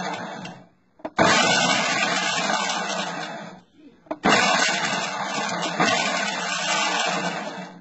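Ninja Professional blender's motor running in pulses, its stacked blades chopping cooked bacon into bits. One pulse stops about half a second in. Two longer pulses follow, of about two and a half and three and a half seconds, each starting with a sharp click.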